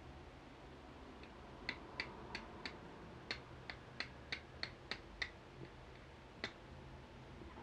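Steel fire striker struck against a hard stone to throw sparks: about a dozen sharp metallic clicks, most of them coming about three a second, each with a brief ring.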